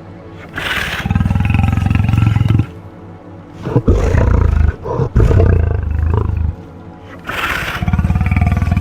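A big cat roaring: three long, low, pulsing roars of about two to three seconds each, one after another.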